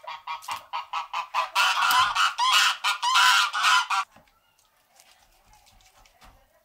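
Geese honking: a quick run of repeated calls that swells into a loud, overlapping clamour and stops suddenly about four seconds in, leaving only faint clicks.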